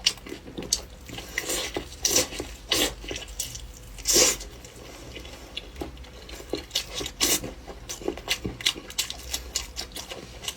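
Close-miked eating of meat: wet chewing and mouth smacks with many irregular sharp clicks, and a louder, longer wet burst about four seconds in.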